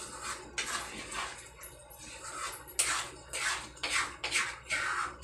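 Spatula stirring thick bagoong alamang (shrimp paste) in a wok on the stove, a run of short scraping strokes about twice a second.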